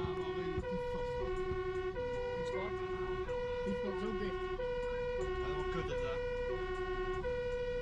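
Dutch fire truck's two-tone siren, heard from inside the cab, alternating steadily between a low note and a high note, each held about two-thirds of a second.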